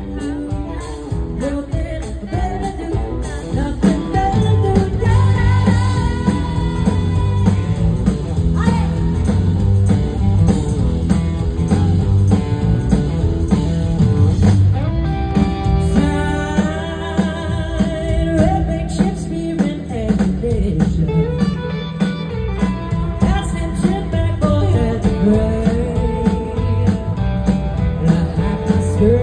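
Live band music heard from the audience in an arena: a woman singing lead over electric guitar and drums, played loud through the PA.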